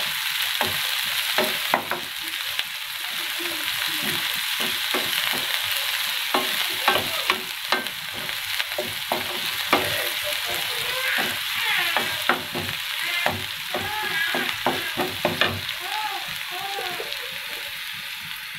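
Chopped onion and whole spices sizzling in hot oil in a nonstick frying pan while a wooden spatula stirs them, scraping and knocking against the pan again and again.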